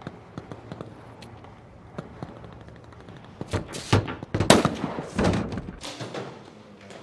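Gunfire in a film battle: a few faint distant shots, then from about three and a half seconds a rapid flurry of loud, sharp rifle shots lasting about two seconds.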